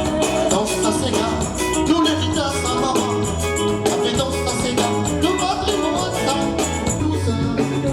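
Latin-style dance music: a singing voice over a steady beat and bass line.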